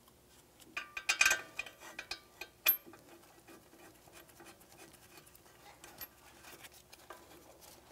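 Light metallic clinks and clicks as bolts and hand tools are handled at a brake caliper bracket. A quick run of ringing clinks comes about a second in, then one sharp click, then faint scattered ticks.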